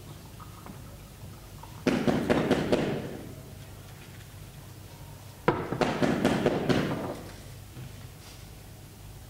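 Two sudden loud bursts of banging and crackling, each about a second long and about three and a half seconds apart, played as a stage sound effect.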